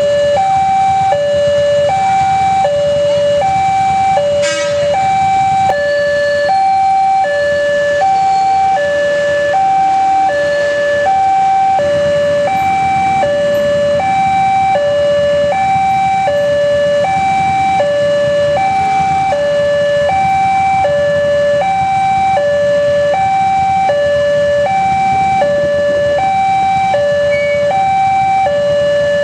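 Railway level-crossing electronic warning siren sounding a steady two-tone hi-lo alarm, about one high-low cycle a second, warning of an approaching train. A steady low rumble runs underneath.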